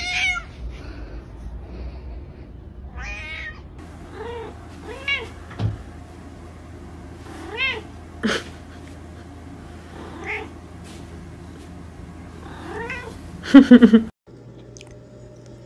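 Domestic cat meowing again and again: short rising-and-falling meows every second or two, then a louder, longer, harsher yowl near the end that cuts off abruptly.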